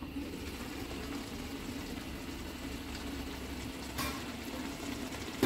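Pork and preserved vegetables braised down to a thick sauce in a stainless-steel wok, simmering with a steady low bubbling sizzle once the lid comes off. A single clink comes about four seconds in.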